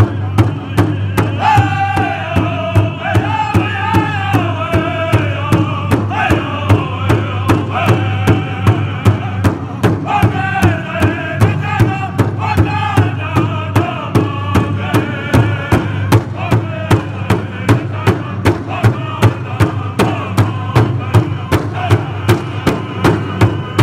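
Powwow drum group: several singers strike one large shared drum in a steady, even beat while singing together in high voices, the phrases falling in pitch.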